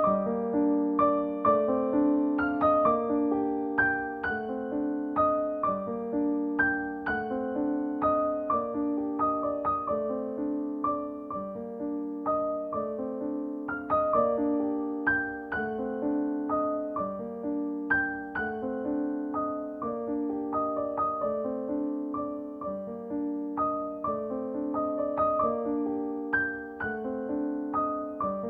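Background piano music: a steady run of repeated piano notes.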